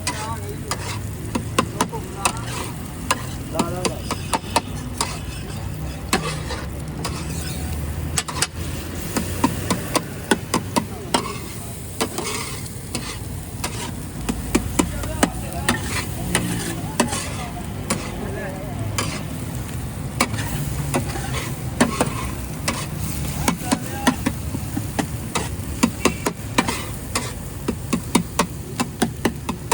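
Daal and egg tikkis frying on a street vendor's flat griddle, with many sharp, irregular clicks and scrapes of a metal utensil on the griddle over the frying.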